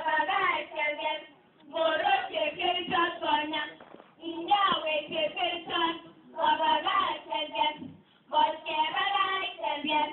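Schoolchildren's voices performing a Kalenjin poem in a sung chant, in a run of short phrases of about two seconds each with brief pauses between them.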